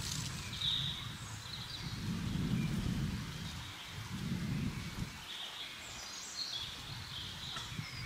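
Wind gusting through the forest in rising and falling waves, with a low rumble. A few short, high bird calls come about a second in and again around six to seven seconds in.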